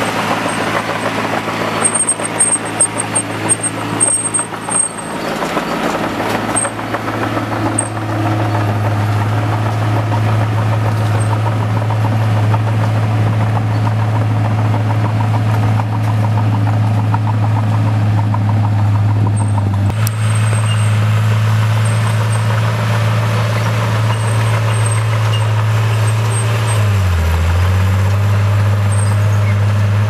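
Caterpillar crawler bulldozer's diesel engine running with a steady low drone as the dozer works the dirt, with irregular knocks and clatter during the first several seconds. Near the end the engine note dips briefly and then recovers.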